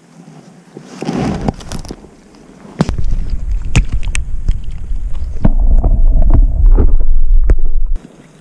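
Water sloshing and splashing against the camera as a small pike is released by hand at the river's edge: a loud low rumble with many sharp knocks and splashes, which cuts off suddenly near the end.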